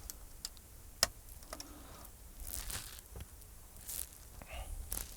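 Scattered light clicks and brief rustles of hands handling the TV's parts, with one sharper click about a second in.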